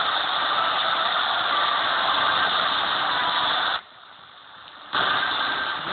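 Shortwave AM reception on a Degen DE1103 portable receiver tuned to 15540 kHz: a steady hiss of static from a weak, distant signal, with faint steady whistle tones in it. The audio drops out for about a second midway through, then comes back.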